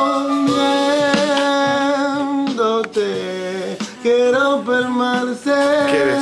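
A man singing a slow, improvised melody a cappella in long held notes, his pitch stepping from note to note a few times.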